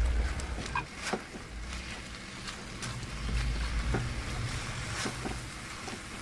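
A spatula stirring bean sprouts in a pan of simmering sauce: scattered short scrapes and clicks over a steady hiss and low rumble.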